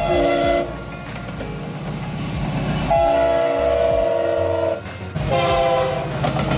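Diesel freight locomotive air horns sounding a chord of several notes in separate blasts that start and stop abruptly, over the rumble of a passing train.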